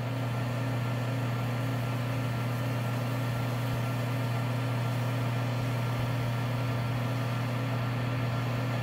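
Pen-turning lathe running steadily with a constant low motor hum while a wet micro-mesh pad is held lightly against the spinning acrylic pen blank.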